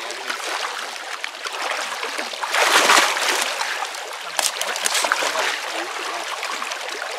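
Shallow creek water splashing and sloshing around hands working in it at the bank, over a running stream, with a louder burst of splashing about two and a half seconds in.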